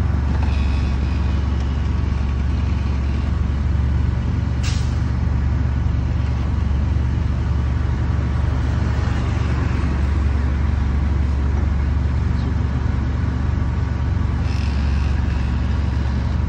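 Heavy truck engine running steadily with a deep, even hum, with a short hiss about four and a half seconds in.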